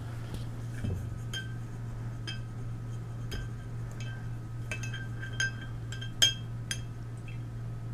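A paintbrush being rinsed in a water jar, its handle and ferrule knocking against the jar in about a dozen irregular clinks, each with a short ring; the loudest comes about six seconds in.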